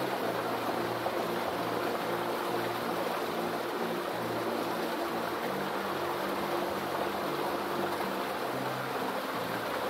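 Soft background music with sustained low notes that change every second or so, over a steady outdoor hiss.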